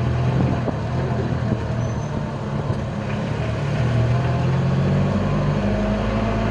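Old Mitsubishi L300 pickup's engine running steadily under a heavy load, heard from inside the cab as it drives along. Its note shifts slightly about five seconds in.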